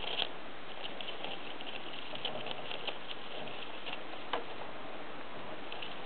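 Hamster scrabbling about in wood-shaving bedding: a run of light rustles and small clicks over a steady hiss, with one sharper click about four seconds in.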